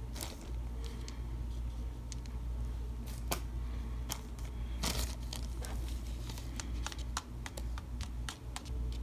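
Picture dice clicking and tapping as they are set down and nudged into a line on a card: a dozen or so short, scattered clicks, more of them in the second half. A low steady hum runs underneath.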